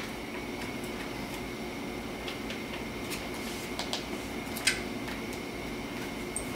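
Steady low room hum, like a fan or air conditioning running, with a few faint ticks and clicks scattered through it.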